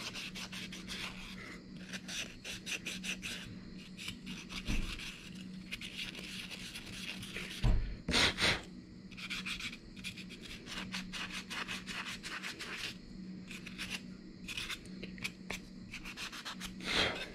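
400-grit sandpaper rubbed by hand over a carved wooden spoon in quick, short back-and-forth strokes, working down inside the bowl. There is a louder scrape about eight seconds in and another near the end.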